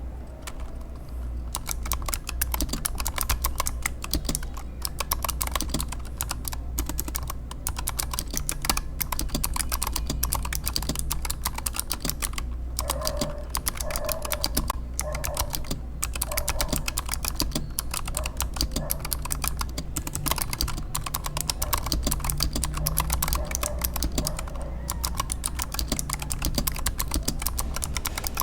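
Fast, continuous typing on a Razer Huntsman Mini 60% mechanical keyboard with purple clicky optical switches and doubleshot PBT keycaps. The rapid key clicks start about a second and a half in and stop briefly a few times, over a steady low hum.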